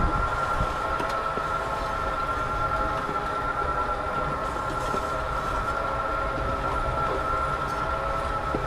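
FarmDroid FD20 field robot's electric motors giving a steady whine, over the low rumble and scrape of its hoe tools working through the soil.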